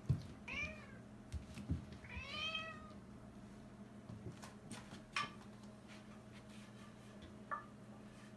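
Domestic cat meowing twice, a short meow and then a longer one that rises and holds, with a brief chirp near the end. A sharp thump comes right at the start, and there are a few soft knocks and clicks in between.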